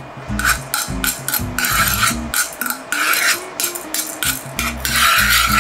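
Wooden spoon stirring a soy-sauce and rock-sugar sauce in a metal pan, scraping the pan's bottom in repeated strokes about two to three a second, with a longer scrape near the end. The sauce is being stirred as it comes to the boil so that the rock sugar dissolves.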